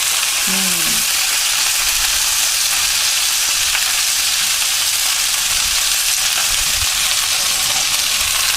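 Breaded chicken thighs, drizzled with olive oil, sizzling up a storm on a baking pan in a 425°F oven: a steady, even frying hiss.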